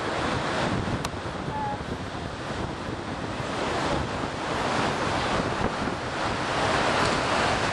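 Wind buffeting the camera microphone, with the steady wash of surf breaking on the beach underneath.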